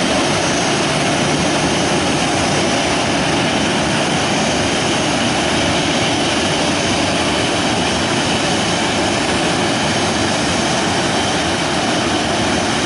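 Jet engines of an ANA Boeing 737 running at idle as the airliner taxis in toward the gate, a steady jet noise.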